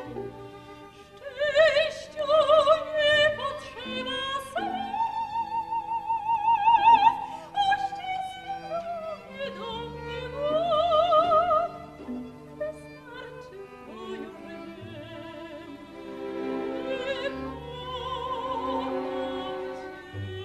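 Operatic soprano singing long, sustained notes with a wide vibrato over an orchestra with strings, in a slow operetta waltz duet. Her singing is loudest in the first half.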